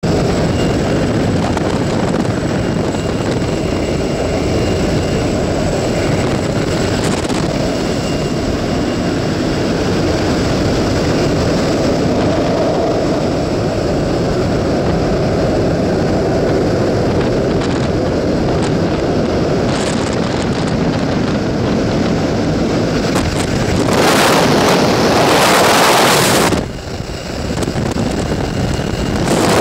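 Steady drone of a jump plane's engine and propeller heard from inside the cabin. Near the end a loud rush of wind covers it for about two seconds, drops away briefly, and returns.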